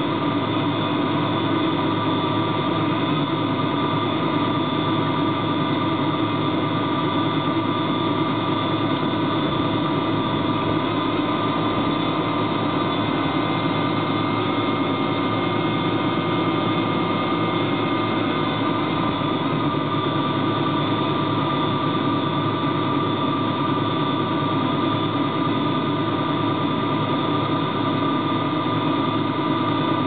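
Motor of a small Voith Schneider–propelled tug running steadily while underway: an even drone with a steady high whine above it.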